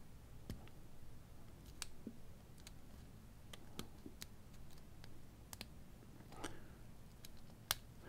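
Light metallic clicks of a lock pick and tension wrench working the pin-tumbler cylinder of a Master Lock 318DLH padlock. There are a dozen or so faint clicks, irregularly spaced.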